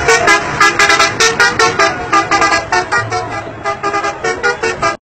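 Vehicle horn tooting a fast run of short notes at changing pitches, like a musical horn playing a tune; it cuts off suddenly near the end.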